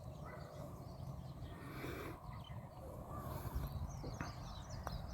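Several birds chirping with short, quick calls over a low steady rumble. There is a light click near the end.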